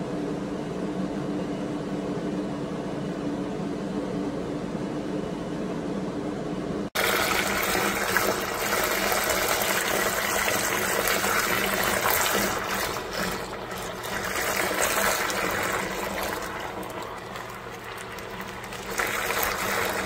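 Danisse mini ultrasonic turbo washing machine running submerged in a tub of water and clothes: a steady motor hum, then, after a sudden jump about seven seconds in, louder churning water heard close up.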